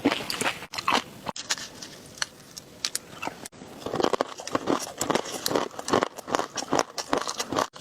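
Close-miked eating sounds: a person biting and chewing crunchy food, with dense crackling. The sound breaks off abruptly three times between clips, about a second and a half apart at first, then once more near the end.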